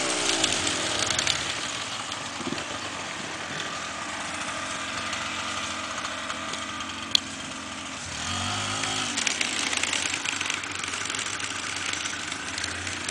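Off-road dirt bike engines running at a distance, their revs rising and falling unevenly as the bikes ride on forest trails, with a louder burst of revving about eight seconds in. A single sharp click sounds about seven seconds in.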